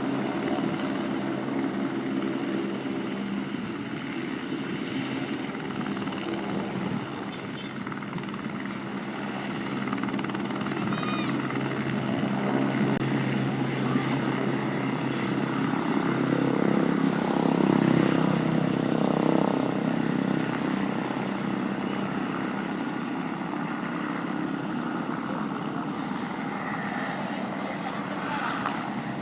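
Helicopter flying past: a steady rotor and engine drone that grows louder to a peak about eighteen seconds in, then fades.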